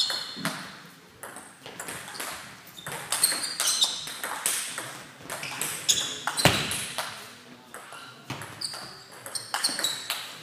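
Table tennis rally: the ball clicks sharply and repeatedly off the bats and the table in an irregular rhythm.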